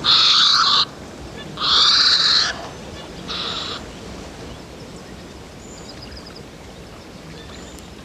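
Three harsh, hoarse calls from a heron's nest with chicks at feeding time. The first two last nearly a second each and the third is shorter, ending about four seconds in. A few faint high chirps follow.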